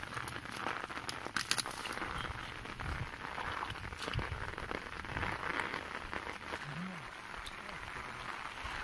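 Light rain falling steadily on a waterlogged field, with crackles, rustles and small splashes as hands grope through muddy water and dry rice stubble.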